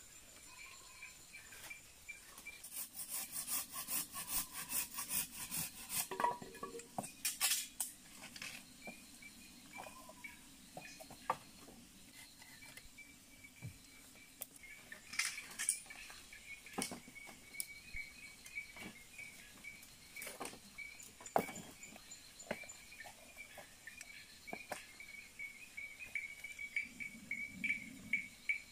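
Knocks and clacks of bamboo poles and split bamboo slats being handled and laid on a pole frame, with a quick run of rapid clicks a few seconds in. Insects chirr steadily in the background.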